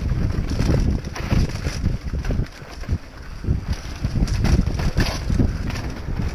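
Wind buffeting the microphone during a fast mountain-bike descent, with a steady low rumble of tyres rolling over a dirt trail and frequent short knocks and rattles as the bike hits bumps.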